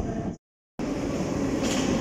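London Underground Piccadilly line train running into the platform from the tunnel, a steady train noise. It is cut by a sudden gap of silence lasting about a third of a second near the start, an edit cut.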